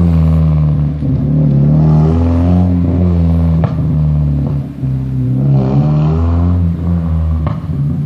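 1996 Mazda Miata four-cylinder engine, running through a decatted stainless cat-back exhaust and racing muffler, accelerating hard as the car pulls away. It revs up twice, dropping in pitch at the shift between, with a couple of sharp pops.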